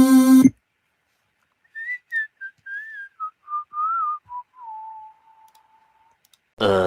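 A person whistling a short wavering melody that steps down in pitch and ends on a long held note. Just before it, a loud held synthesizer note cuts off about half a second in, and a loud burst with sweeping pitches comes in near the end.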